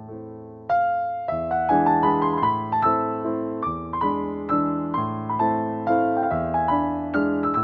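Background piano music: a gentle melody of struck notes, picking up with a new phrase about a second in.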